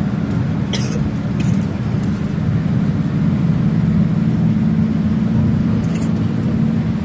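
Steady low rumble of engine and road noise heard from inside a vehicle travelling at highway speed, with a few light clicks.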